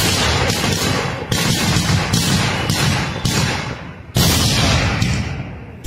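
Kerala temple-festival ground firecrackers (vedikkettu) going off in a rapid, irregular string of loud blasts, about two a second, each echoing briefly, with the heaviest ones at the start, about a second in and about four seconds in.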